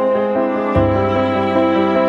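Background music with slow, held notes; a low bass note comes in about three quarters of a second in.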